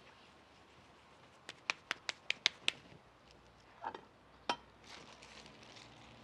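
Tortilla-making by hand: a quick run of about seven sharp pats as masa is worked, then a short clatter and a single knock with a brief ring as the tortilla gear is handled, followed by faint light pattering.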